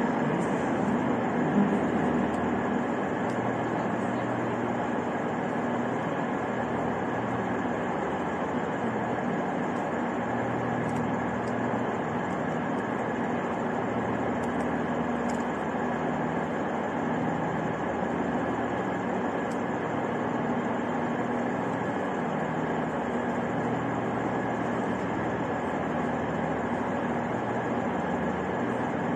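Steady rumble and hum of trains standing or moving in a railway station hall, with low droning tones that shift every second or two and no sharp events.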